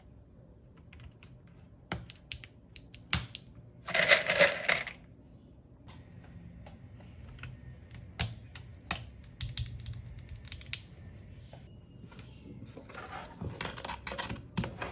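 Irregular clicks and clacks from a mechanical keyboard, with a dense rattling flurry about four seconds in and another run of clicks near the end.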